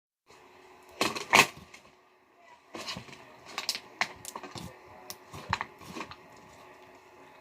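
Slime being squeezed and poked by hand, giving irregular crackling clicks and pops, with the loudest cluster about a second in.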